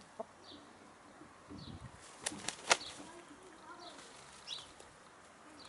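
Brown laying hens foraging: a few faint low clucks and short high calls, and a cluster of sharp clicks from pecking and scratching at the soil between two and three seconds in, the loudest of them near the end of that cluster.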